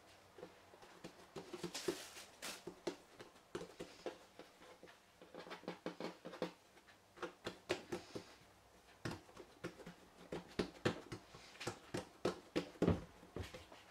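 Fingers pressing and patting a ball of risen yeast dough out flat on a wooden tabletop: faint, irregular soft taps, busier and a little louder with dull thumps in the last few seconds.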